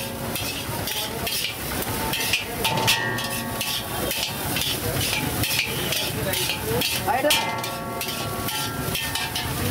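Metal spatula scraping and knocking against a wok in quick, irregular strokes as fried rice is tossed, over a steady sizzle of the rice frying on high heat.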